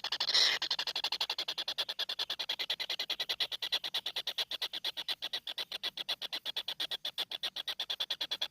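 Rapid, even pulsing animal call, about eleven high-pitched pulses a second, with a louder burst about half a second in.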